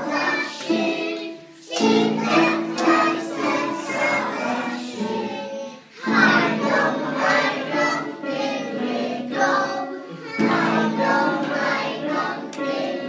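Group of small children singing a song together, with adults joining in, line by line with brief pauses between phrases.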